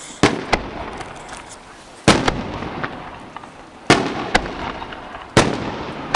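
Aerial fireworks shells bursting: four loud booms spaced about one and a half to two seconds apart. Each is followed by a smaller crack and an echo that fades away.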